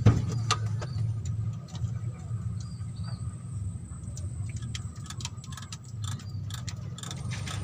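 Scattered light metallic clicks and clinks of hand tools on engine parts, over a steady low rumble.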